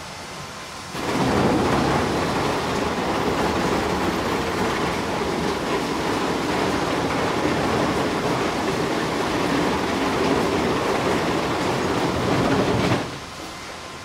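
Sawmill machinery running. A low steady noise turns about a second in to a much louder, dense noise that holds steady, then drops off sharply about a second before the end.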